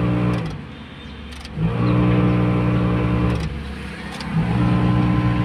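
Renault Kwid's cabin blower fan motor running with a loud, low, steady hum that stops and starts again in spells of about two seconds. It is a noisy blower motor that needs taking out from behind the dashboard and cleaning.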